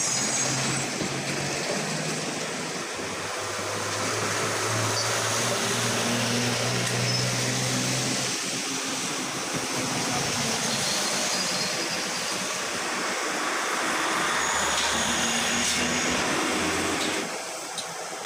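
Steady street traffic noise, with a vehicle engine humming through the first half and then fading.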